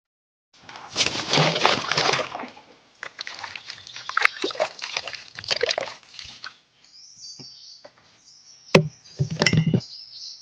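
Water sloshing and splashing in irregular bursts, with a couple of sharp knocks near the end.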